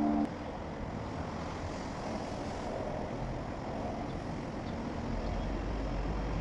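Background music cuts off just after the start, leaving a steady low rumble of outdoor ambient noise that swells slightly near the end.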